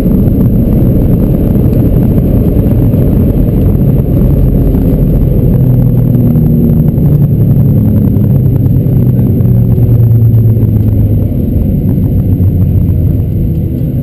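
Boeing 737-600 heard from inside the cabin during the landing rollout: a loud, steady low rumble of the CFM56 engines and the wheels on the runway. An engine hum swells through the middle and eases off near the end as the jet slows.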